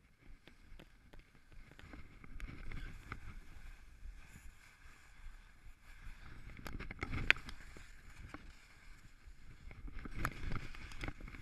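Skis scraping and sliding over snow on a steep descent, swelling with each turn, with wind buffeting the camera microphone and scattered sharp clicks, the loudest about seven seconds in.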